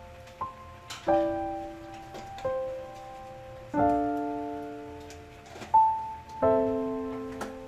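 Slow background piano music: soft chords struck every second or two, each left to ring and fade.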